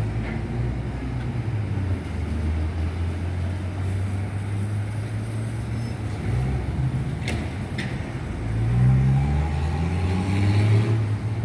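An engine running with a steady low hum, growing louder and shifting in pitch near the end, with two short clicks about halfway through.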